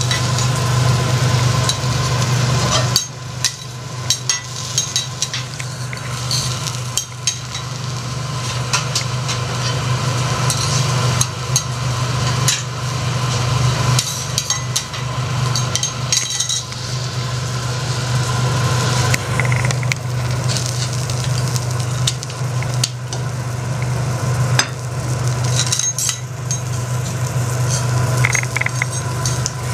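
Prawns sizzling on a teppanyaki iron griddle, with metal spatulas scraping and clicking against the plate at irregular moments, over a steady low hum.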